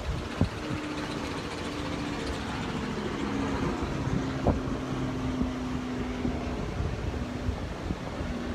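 A distant motor's steady hum, its pitch sinking slowly, over a low rumble of wind and surf.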